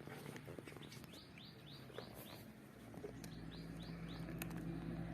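A small bird chirping faintly in quick runs of short, high notes that each fall in pitch, about five in a row, then a second run a second later. A steady low hum comes in about three seconds in.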